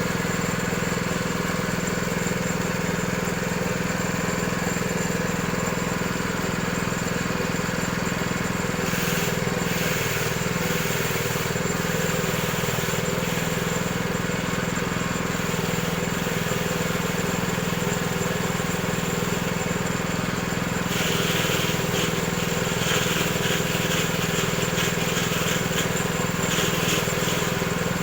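Coconut husk shredding machine running steadily with a low, even hum, joined by stretches of rougher, hissing noise about nine seconds in and again from about twenty-one seconds in.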